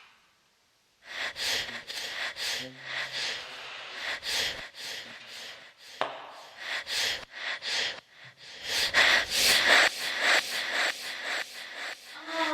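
Heavy breathing: harsh, noisy breaths in quick irregular succession, starting about a second in and getting louder in the second half.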